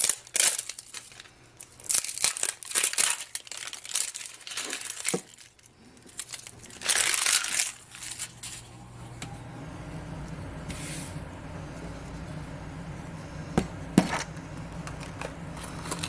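Crinkling and tearing of the plastic wrap being peeled off a plastic toy capsule ball, in irregular bursts. About halfway through, a low steady hum comes in, and a couple of sharp plastic clicks follow as the capsule is opened.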